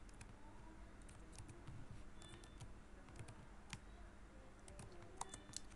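Computer keyboard being typed on: faint, irregular key clicks in small clusters.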